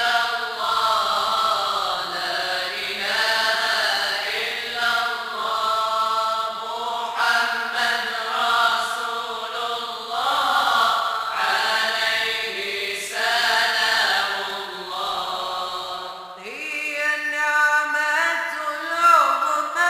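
A group of voices chanting a Moroccan madih, a Sufi praise song for the Prophet, without instruments. Long held notes and sliding ornaments run over a steady low held note. Near the end the voices move up to a higher pitch.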